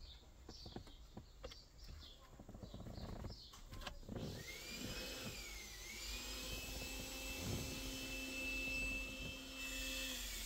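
Small clicks and taps of plastic console trim being handled, then, about four seconds in, a motor starts up with a steady whine that rises, dips once and settles.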